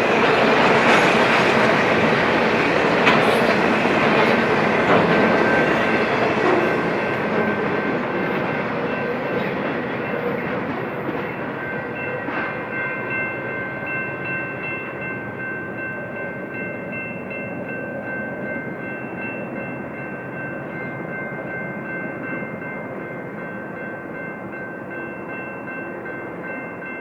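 A freight train rolling past, its wheels and cars rumbling and clattering, slowly fading as it goes by. A few steady high-pitched tones join in about halfway through and hold to the end.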